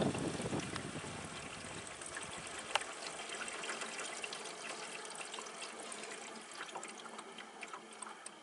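Arctic King window air conditioner spinning down after being switched off: its fan and air noise fade steadily away, with scattered small ticks and water trickling inside the unit.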